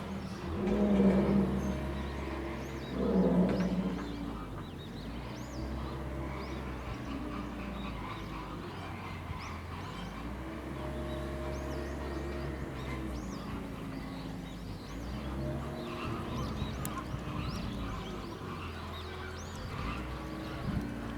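Lion grunting: deep grunts about two seconds apart in the first four seconds, the tail end of a roaring bout. After them a low steady engine-like drone rises and falls, with small birds chirping.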